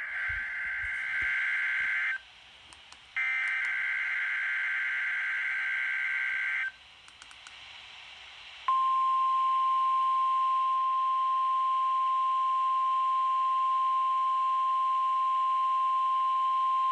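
NOAA Weather Radio emergency alert signal sent as a required weekly test. It starts with the SAME digital header: the tail of one burst of screeching data, a pause of about a second, then a second burst of about three and a half seconds. About nine seconds in, the steady 1050 Hz warning alarm tone begins and holds on one pitch.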